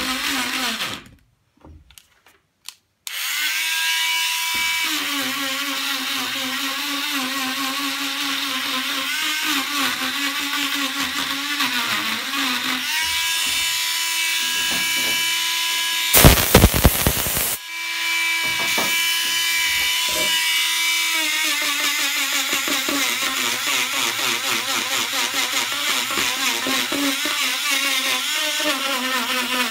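Small hand-held rotary tool with a carving burr cutting into a wooden relief panel: a steady high whine whose pitch wavers as the burr bites. The tool stops about a second in and spins back up about two seconds later. About halfway through, a loud harsh noise lasts a second or so.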